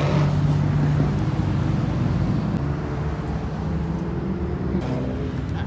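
Engines and exhausts of modified cars driving past on a street, a steady engine drone that is loudest at first and eases off a little after a couple of seconds.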